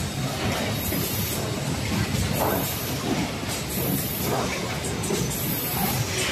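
Automatic cartoning machine on a packing line running, a steady mechanical clatter. A high hiss comes back about every second and a half.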